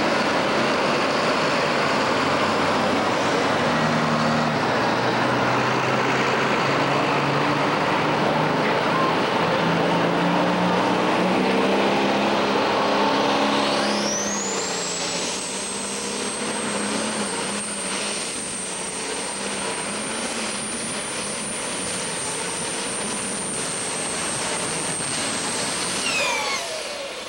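Super Stock pulling tractor's multi-turbo engine running flat out under the load of the sled, its pitch climbing in steps during the first half. About halfway a high whine sweeps up and holds steady, then falls away near the end as the engine winds down.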